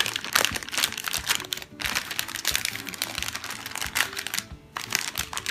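Plastic and foil candy packaging crinkling and crackling irregularly as it is handled, with faint background music underneath.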